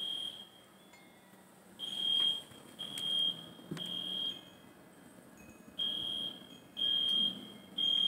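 A high-pitched electronic alarm beeps in groups of three, about one beep a second, with a pause of about two seconds between groups. This is the three-beep evacuation pattern of a smoke alarm.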